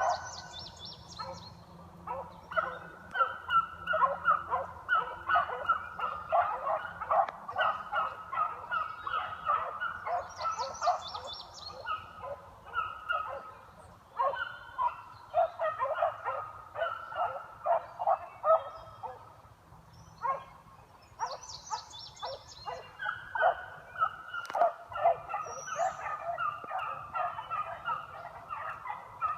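A pack of beagles baying on a scent trail: many short, overlapping yelps in a rapid, uneven run that thins out twice for a moment, around halfway and again a little later.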